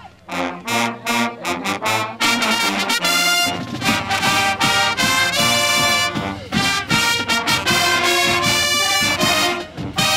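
College marching band playing: trumpets, mellophones and sousaphones with clarinets. After a brief gap at the start the horns play a phrase, and about three and a half seconds in the drums come in and the full band plays on.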